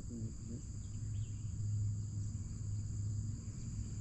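Steady high buzzing of insects, over a low steady hum.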